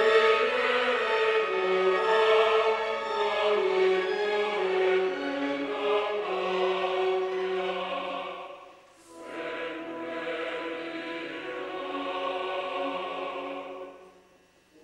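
Operatic chorus singing a slow, sustained melodic line. The singing breaks off briefly a little past halfway, resumes, and dies away near the end.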